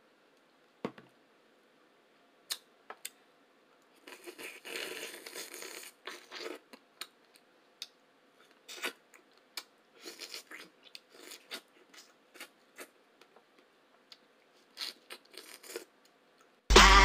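Close-miked eating sounds: scattered short mouth clicks and smacks of chewing, with a denser two-second stretch of noise about four seconds in. Music starts loudly just before the end.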